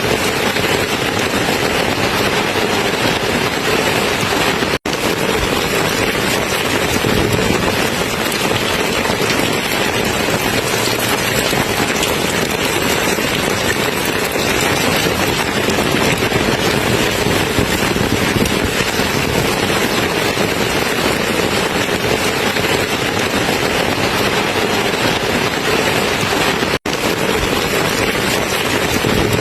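Steady, dense rain falling as an even hiss, with no distinct drops or thunder. The sound cuts out for an instant twice.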